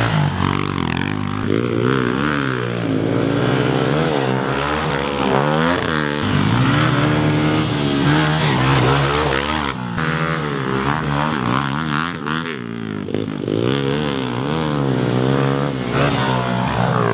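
2021 Honda CRF110F pit bike's small four-stroke single-cylinder engine revving up and down as it is ridden around a dirt track, its pitch climbing and dropping over and over.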